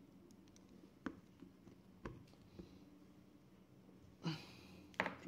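Light metal clicks and a short scrape as a screwdriver is worked against the pivot of a Dell Vostro 5590 laptop hinge clamped in pliers. There are a few separate clicks, a brief scrape about four seconds in, and then one sharp click, the loudest.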